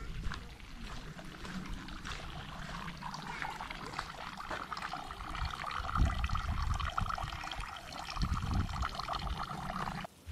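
Water from a metal spout pouring in a thin stream from a stone fountain trough and splashing steadily, growing louder about three seconds in. Two low thumps come about six and eight seconds in.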